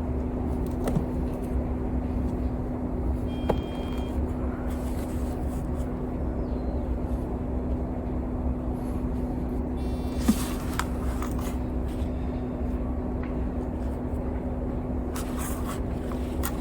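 A steady low mechanical hum with one constant drone pitch, like a motor running, with a few faint clicks over it.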